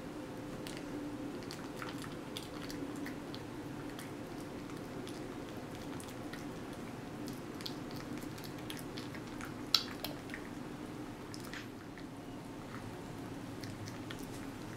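A cat eating a banana: scattered soft, wet smacking and chewing clicks, with one sharper click about ten seconds in, over a low steady hum.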